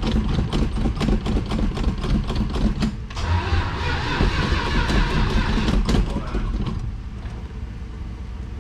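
Starter cranking the 1971 Dodge Demon's 318 V8 in two runs of about three seconds each with a brief break between, the engine not catching; the sound falls away about seven seconds in. The owner suspects the engine might be flooded.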